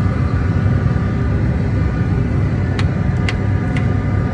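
Steady low rumble of a fishing trawler's engine running. Three short clicks come about half a second apart, a little past the middle.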